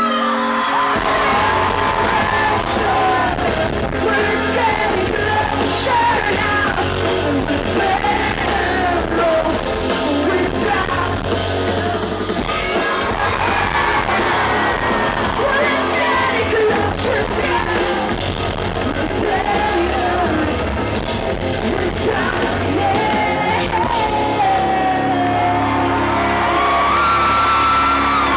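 Pop-punk band playing live, recorded from within the crowd: electric guitars, bass and drums under a woman's lead vocal.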